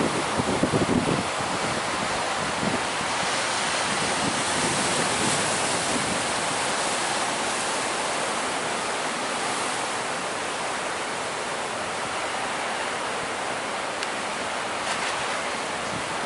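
Heavy sea surf with a continuous wash of breaking waves, and strong wind buffeting the microphone, hardest in the first second or so.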